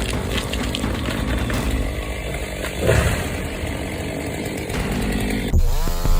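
Chainsaw running through wood. About five and a half seconds in there is an abrupt change to a chainsaw revving up, its pitch rising and then holding steady.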